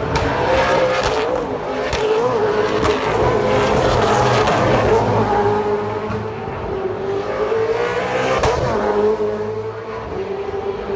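V8 Supercars race cars running at high revs, the engine note rising and dipping.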